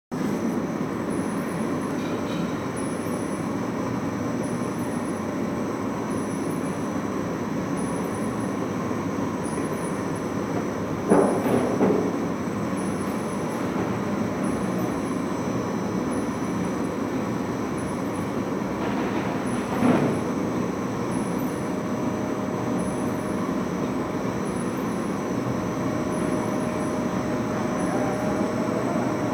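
Plastic bag cutting machine running steadily, with a faint regular high tick about once a second as it cycles through bags. Two louder knocks stand out, one about eleven seconds in and another about twenty seconds in.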